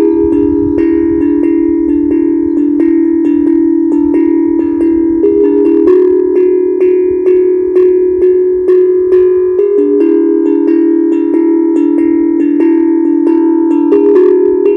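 Steel tongue drum (HAPI drum) played by hand: a continuous run of struck notes, about three a second, each ringing on and overlapping the next as the melody moves between notes of a pentatonic scale.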